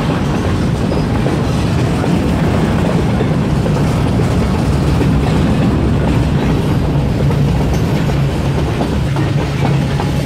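Kiamichi Railroad freight train's cars rolling past at a road crossing, a loud, steady rumble and clatter of steel wheels on the rails.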